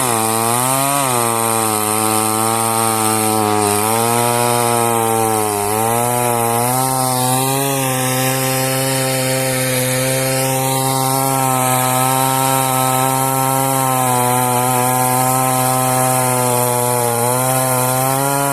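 Chainsaw engine running steadily under load while cutting into a date palm trunk, its pitch dipping briefly a few times as the chain bites.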